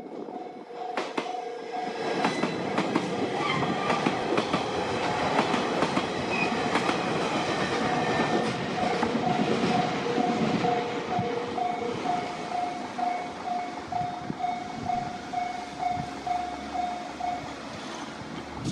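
A train passes over a Japanese railway level crossing, its wheels clattering over the rails, while the crossing's electronic warning bell rings in a steady pulse of about two dings a second. The bell stops near the end as the train clears.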